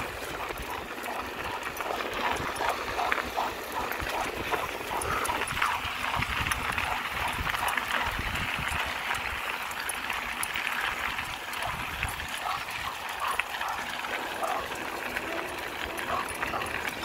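German Shorthaired Pointers vocalizing in short, repeated cries.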